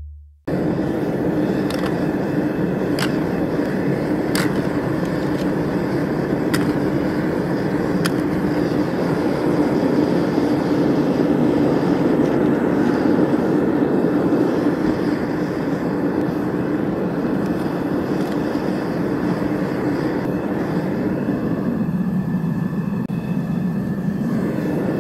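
Propane furnace burner firing with a steady rushing noise as aluminum cans melt in the crucible, with a few sharp metallic ticks in the first several seconds.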